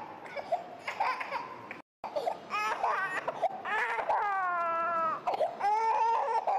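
An infant crying in repeated wails, with one long wail about four seconds in that falls in pitch. The sound cuts out briefly just before two seconds in.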